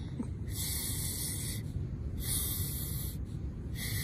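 Sand sprayed across the ground in a mock sandstorm, hissing in three bursts of about a second each, over a steady low wind rumble on the microphone.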